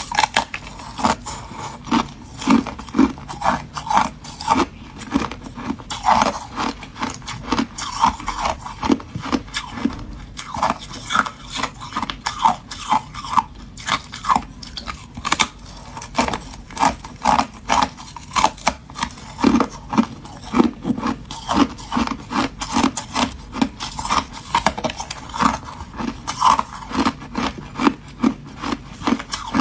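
Ice being crunched and chewed between the teeth close to the microphone: a steady run of sharp, brittle crunches, about two or three a second.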